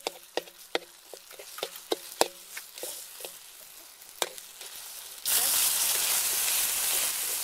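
Metal spatula scraping and tapping against a hot wok as garlic and shrimp paste are stir-fried, over a light sizzle. About five seconds in, liquid hits the hot pan and a loud, steady sizzling hiss starts.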